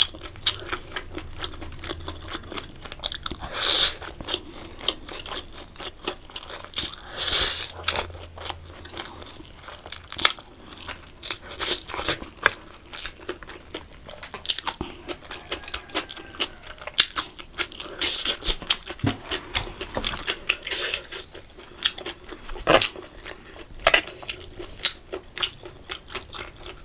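A person chewing and biting food close to the microphone, with crisp crunches and mouth clicks all through and a few louder, longer bursts about four and seven seconds in.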